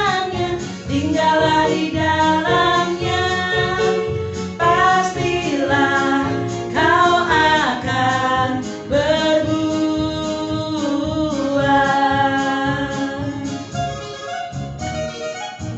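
A woman singing a Christian worship song over instrumental accompaniment, a little quieter near the end.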